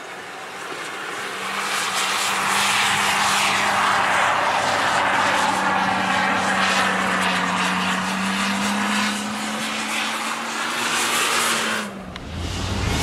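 Supercharged Toyota Land Cruiser 80 Series engine held at high revs as the truck slides and spins through soft sand. The note builds over the first couple of seconds and holds steady, rising a little. Near the end it drops, and the sound cuts abruptly to a deeper engine.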